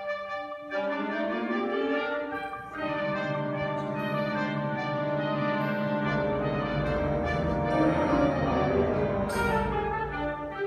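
School concert band playing sustained brass-led chords that swell, with a low rumble joining about six seconds in and building to a peak, and a sharp bright hit about nine seconds in.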